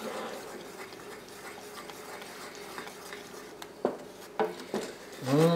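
Wooden spoon stirring thick caramel sauce in a stainless steel saucepan: a soft, steady scraping and sloshing, with a few light knocks of the spoon against the pan about four seconds in.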